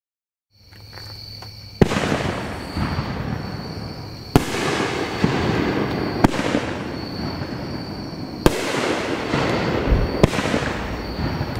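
A 9-shot 500-gram consumer fireworks cake firing its shots one after another, about five sharp bangs roughly two seconds apart, each trailing off into a long noisy tail.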